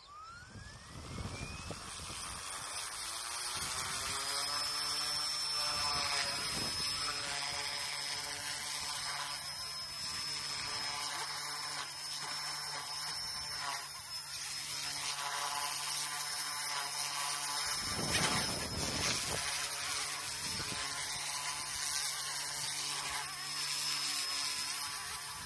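A GOOSKY S2 small electric RC helicopter spooling up: the motor and rotor whine rises in pitch over the first few seconds, then holds a steady high buzzing whine. There is a brief louder rush about three quarters of the way through.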